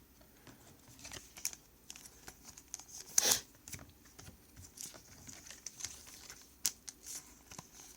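Plastic card sleeves crinkling as trading cards are handled and shuffled: scattered small rustles and clicks, with one louder rustle about three seconds in.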